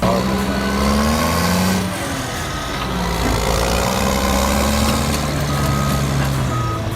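Heavy diesel machinery engine working under load, its pitch rising and falling. A reversing alarm beeps twice near the end.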